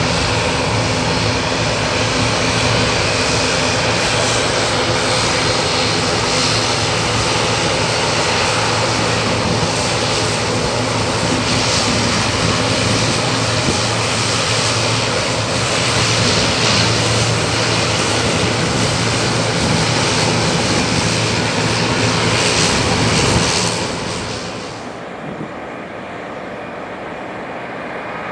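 Airbus C295M's twin Pratt & Whitney PW127G turboprops running while it taxis: a steady propeller hum under a broad hiss. About 24 s in, the sound drops and the hiss fades out.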